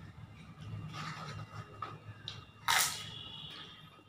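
Soft chewing and hand-eating sounds, then about two and a half seconds in one sharp, crisp crackle of a papadam being snapped.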